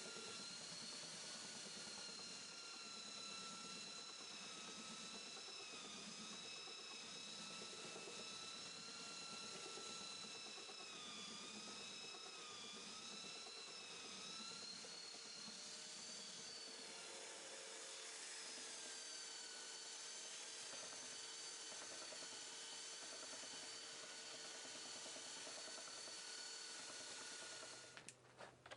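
A high-speed electric power tool motor running with a steady whine. The pitch sags briefly now and then as it takes load, and it shuts off near the end with a few clicks.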